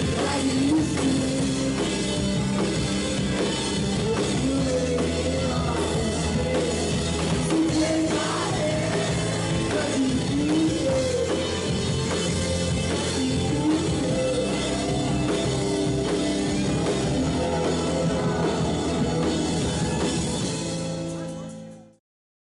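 Rock song with drums and a sung melody, fading out near the end.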